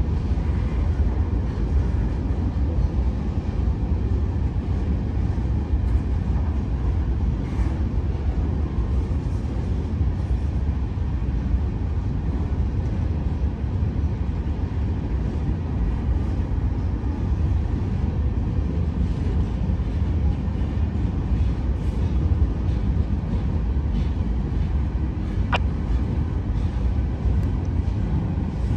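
Freight cars of a long CSX train rolling past, with a steady low rumble of wheels on rail.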